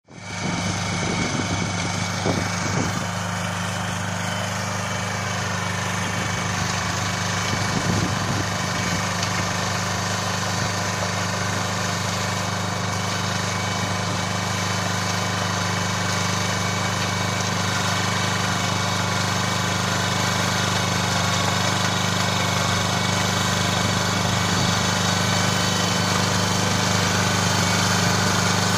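Kubota B1-10 compact tractor engine running steadily under load as it drives its rear rotary tiller through the soil, growing slowly louder as the tractor comes nearer.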